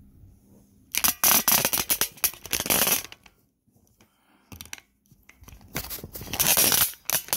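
Handling noise from a phone recording itself: fingers rubbing and scraping over the phone and its microphone as it is picked up and tilted, in two long scratchy bursts with a few shorter ones between.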